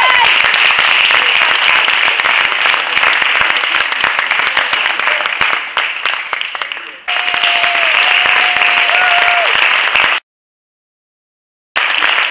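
Audience applauding with sustained clapping from many hands. A single held high note sounds over the clapping for a couple of seconds about seven seconds in. The sound cuts out completely for about a second and a half near the end, then the clapping resumes.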